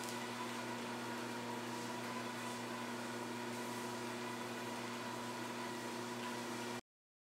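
Motorised treadmill running, a steady electric hum with a few fixed tones over belt and motor noise, which cuts off suddenly near the end.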